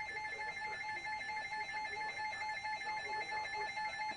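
Electronic alert tone from an emergency alert receiver: a rapid trilling beep on a mid and a high pitch together, ringing like a telephone. The high part cuts off near the end.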